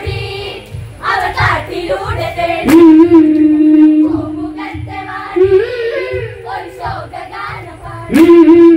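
Group of voices singing an Onamkali folk song in chorus, holding one long note about three seconds in and another near the end, over a steady low beat.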